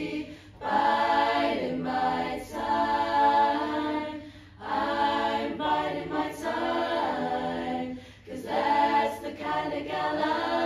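Barbershop chorus of girls' voices singing a cappella in close harmony, in held phrases of about four seconds with brief breaks between them.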